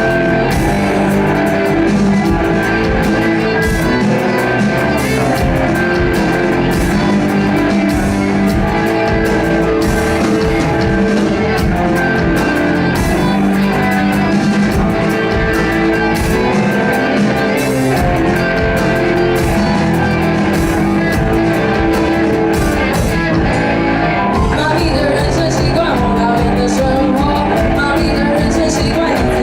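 A rock band playing live, with guitar and drum kit, at a steady loud level.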